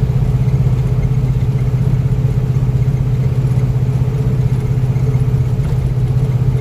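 1970 Pontiac GTO's 461-cubic-inch fuel-injected V8 with a full 3-inch exhaust, running at a steady, low engine speed while cruising, heard from inside the cabin as a low, even exhaust note that neither rises nor falls.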